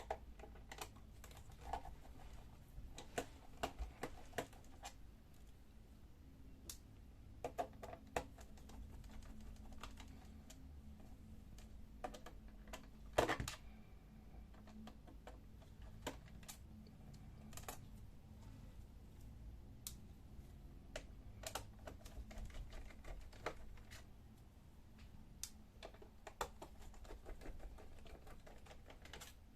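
Irregular light clicks and ticks of a screwdriver turning out the small screws of a laptop's plastic bottom panel, with one louder knock about halfway through.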